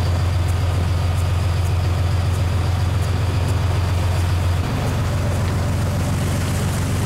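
Sportfishing boat's engines running steadily underway, a deep drone under the rush of the wake and wind. The drone drops slightly and changes tone about four and a half seconds in.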